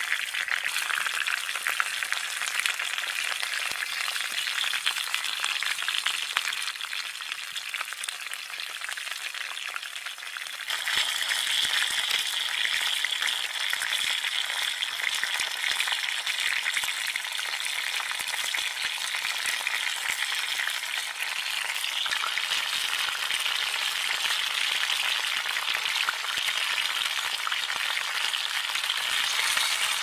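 Sliced potatoes and onions frying in a cast iron skillet, a steady crackling sizzle that grows louder about a third of the way through.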